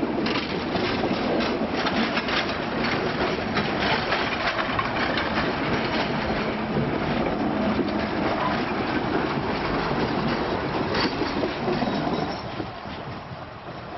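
Passenger coaches of a heritage train rolling past close by, their wheels clattering over the rails with many irregular clicks. The sound drops away about twelve seconds in as the last car goes by.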